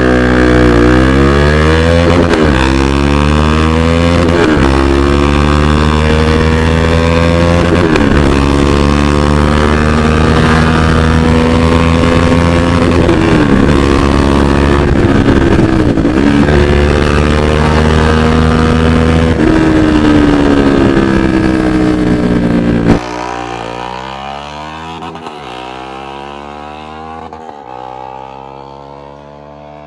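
KTM RC 390's single-cylinder engine through a loud aftermarket exhaust, accelerating hard: the pitch climbs in each gear and drops back at each upshift, several times over. About 23 s in it turns abruptly quieter and goes on shifting as it fades away.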